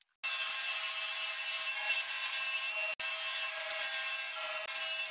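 Table saw running as it rips a long plywood strip for French cleats: a steady high-pitched cutting sound, broken off for an instant about three seconds in.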